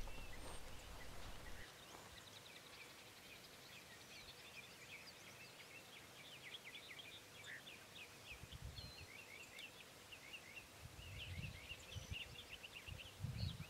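Faint birds chirping in a quick run of short high notes, with a few low rumbles in the second half.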